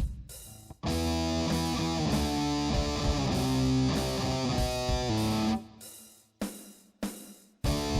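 Background music led by distorted electric guitar playing a rock riff. Short stabbed chords and silent breaks come before about a second in, sustained chords follow, and the stop-start stabs return from about six seconds in.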